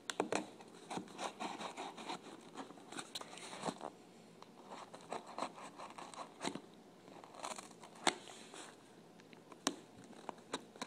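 Packing tape on a cardboard box being cut and scraped open: irregular scratching and scraping against the cardboard, with a few sharp clicks along the way.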